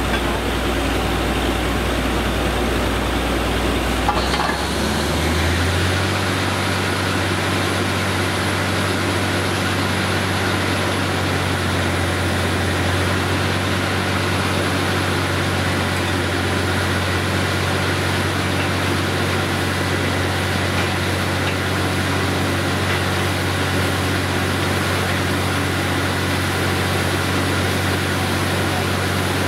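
Truck-mounted borewell drilling rig's engine and air compressor running with a steady low hum; about four seconds in, the engine speeds up, its hum stepping higher in pitch with a high whine coming in, then runs on steadily at the higher speed.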